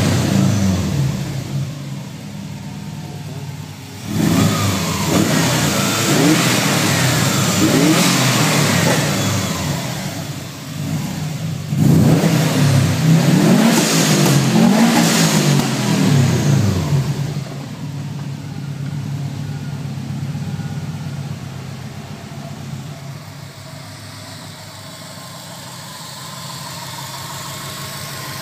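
Subaru Impreza WRX STI's turbocharged flat-four boxer engine being revved: a rev falls away at the start, then two bursts of throttle blips rise and fall in pitch. After that it settles to a steady idle for roughly the last ten seconds.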